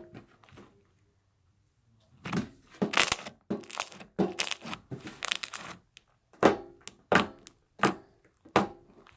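Thick clear glitter slime being squeezed and pressed by hand, with crackling clicks of trapped air starting about two seconds in, then four separate sharp pops of air pockets bursting, about two-thirds of a second apart, near the end.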